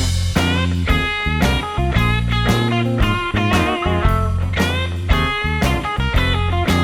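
Guitar-led rock music with a bass line and a steady beat, about two beats a second.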